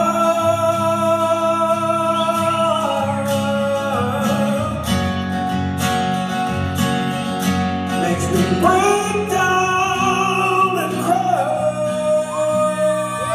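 Live acoustic guitar ballad: acoustic guitar playing under long, held melody notes, with no words sung.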